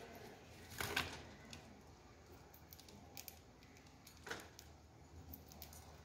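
Faint, sharp clicks and rustles as budgerigars bite and tug at coriander leaves held against their wire cage: one cluster about a second in, a few lighter ones around three seconds, and another just after four seconds.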